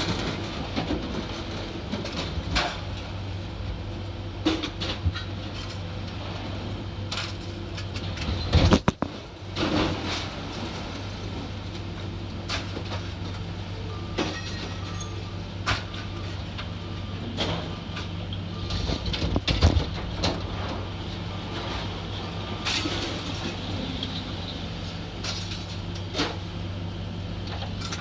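Scrap metal being unloaded by hand, pieces clanking and banging down at irregular intervals over a steady low engine hum. The loudest crashes come about eight and a half seconds in and again near twenty seconds.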